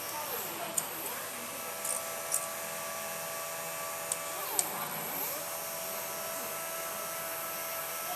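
Stepper motors from a Wantai three-axis CNC kit running with a steady, high-pitched whine. The pitch drops and climbs back up twice as the motors slow down and speed up again, with a few faint clicks.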